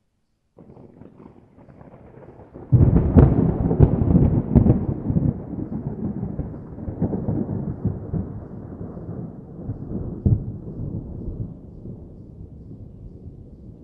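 Thunder: after a brief silence, a low rumble builds, then a sudden loud crack with crackling comes about three seconds in. It rolls into a long rumble that slowly dies away, with one smaller boom about ten seconds in.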